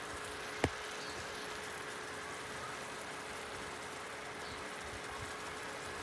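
A pot of fish stew cooking on an induction stove: a steady hiss with a faint steady hum. One sharp click about half a second in.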